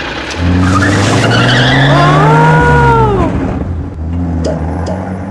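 A van's engine running hard, its pitch rising slightly, with a tyre squeal that climbs and then falls away around the middle; the engine eases off after about three seconds.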